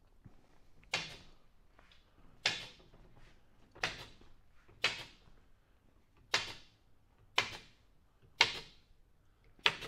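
Pneumatic nail gun firing eight sharp shots, roughly one every second or so, as fasteners are driven into wooden wing ribs.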